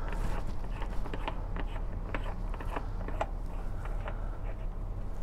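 Wrench tightening the nut on a brass thru-hull fitting bedded in sealant, making a run of irregular clicks.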